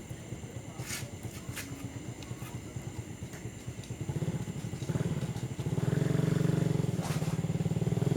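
A small engine running with a fast, even pulsing beat. It grows louder from about four seconds in and is loudest over the last two seconds.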